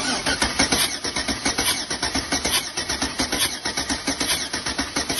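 Car engine being cranked over by its starter motor without catching, a rapid even rhythm of compression pulses.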